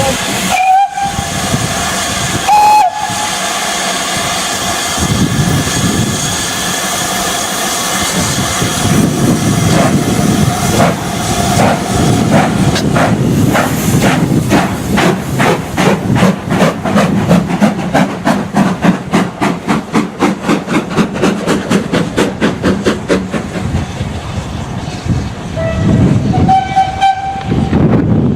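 Two steam locomotives double-heading a train: short whistle blasts about a second in and again near three seconds, a steady hiss of steam, then chuffing exhaust beats that start slowly and quicken as the train pulls away, with another whistle near the end.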